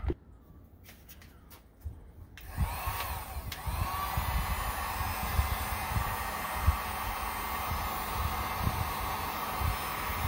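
Electric heat gun switched on about two seconds in, its fan spinning up with a rising whine, then blowing with a steady hiss. A few dull low bumps underneath.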